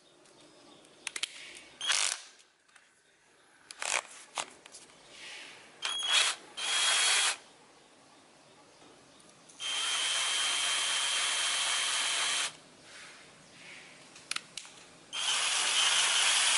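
Hilda 16.8 V cordless drill's brushed 550 motor run in short trigger bursts, then a steady run of about three seconds midway and another starting near the end, with a thin high whine. Between runs there are sharp ratcheting clicks as the keyless chuck and clutch collar are turned by hand.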